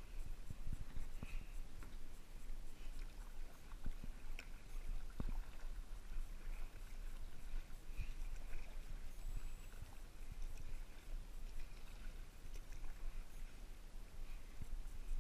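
Kayak paddling: the paddle blade dips and splashes in the water, with small knocks on the hull, over a steady low rumble.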